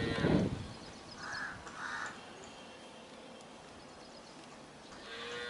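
Asian pied starlings (pied mynas) calling with harsh, grating notes: a loud call right at the start, two short calls about one and two seconds in, and another harsh call beginning near the end.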